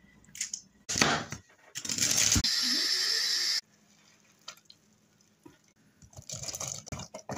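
Meat and bone broth poured from a jar into a stainless steel Instant Pot inner pot over a roast, splashing steadily for a couple of seconds. Later come a few light clicks and a soft rustle.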